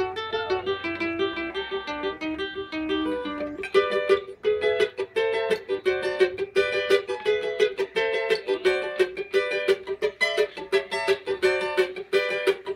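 Cavaquinho being played: a few picked, held notes at first, then steady rhythmic strumming from about four seconds in.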